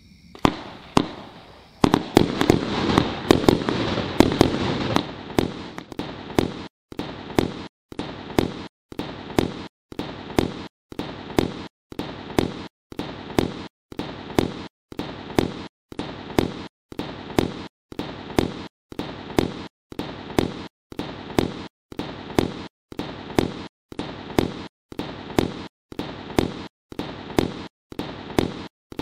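Iskra 'Czesc' 100-shot, 30 mm fireworks cake firing. After about a second it opens with a dense, rapid volley for a few seconds, then settles into single shots at a steady pace of about one and a half a second.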